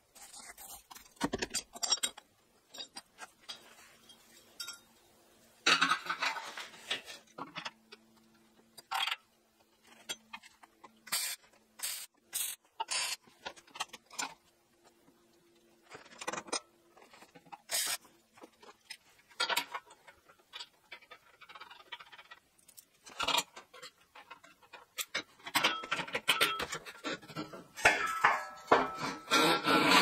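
Intermittent metallic clinks, knocks and scrapes from handling metal parts and tools at a workbench, growing busier near the end.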